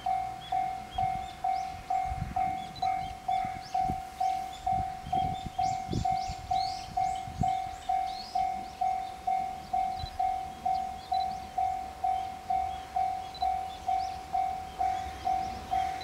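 Japanese level-crossing warning bell ringing steadily at about two strikes a second, the signal that the crossing is closed for an approaching train.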